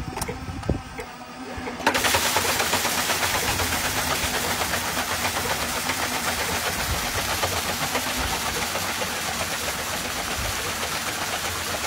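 A click, then about two seconds in an electric water pump starts and runs with a steady loud rush of water as its jet splashes and hisses against a metal wheel with dish-shaped blades.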